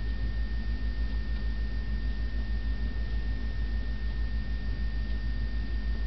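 Steady low rumble with a faint, constant high-pitched whine over it, unchanging throughout; no distinct event.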